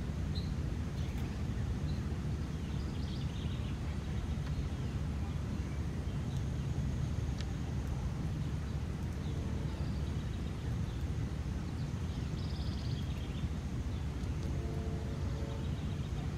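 Outdoor background ambience: a steady low rumble with a few faint bird chirps now and then.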